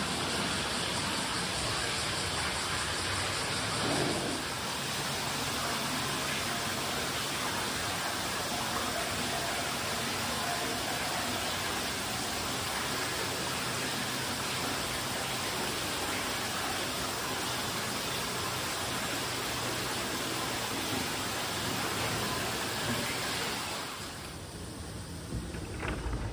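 Hot-spring water running steadily into a bath tub and spilling over its rim, an even splashing rush. It stops suddenly near the end, leaving quieter room sound.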